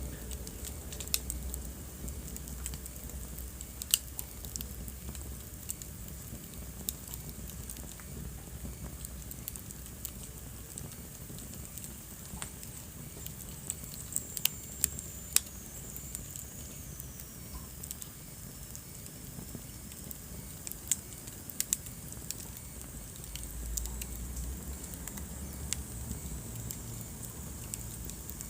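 Wood fire crackling in a fireplace, with irregular sharp pops over a steady hiss of flames. A faint high whistle falls slowly in pitch about halfway through.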